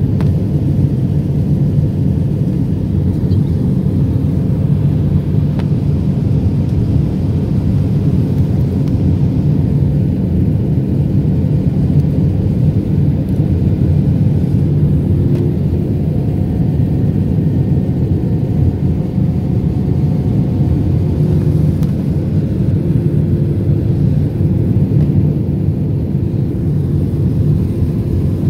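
Steady, loud cabin noise inside an Airbus A320-200 in flight: an even, low roar of engines and airflow. A faint steady hum rises above it for several seconds past the middle.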